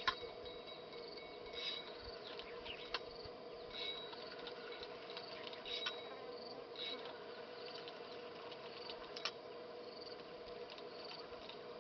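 Insects droning steadily, with short high chirps every second or two, and a few sharp clicks.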